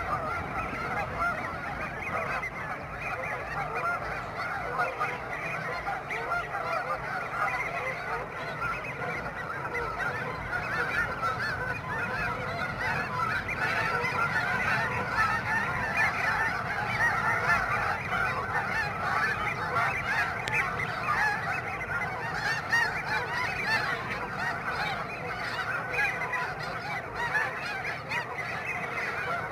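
A large flock of snow geese calling all at once: a continuous din of many overlapping high honks, getting a little louder partway through.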